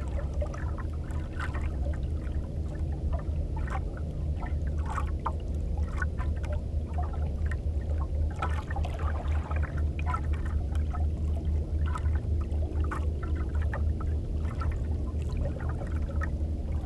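Water slapping and gurgling irregularly against the hull of a small banca, over a steady low rumble.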